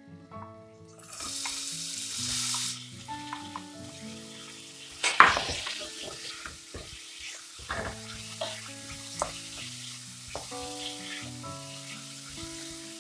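Chopped onions tipped into hot oil in a stainless steel pot, hitting it with a loud sizzle about a second in that lasts two seconds. Then they are stirred with a wooden spoon: a steady frying sizzle, a sharp knock of the spoon against the pot about five seconds in, and lighter taps and scrapes. Soft background music runs underneath.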